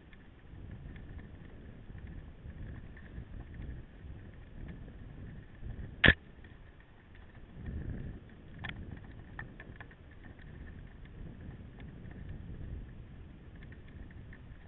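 Mountain bike riding on a dirt track: a low rumble of tyres and wind with scattered light clicks and rattles from the bike, and one sharp knock about six seconds in.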